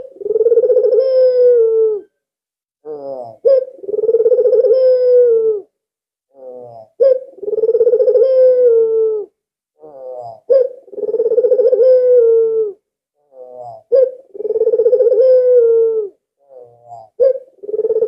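Albino puter (white Barbary dove) cooing over and over: about five calls, each a short clipped note followed by a long drawn coo of about two seconds that drops in pitch at its end, repeating roughly every three and a half seconds.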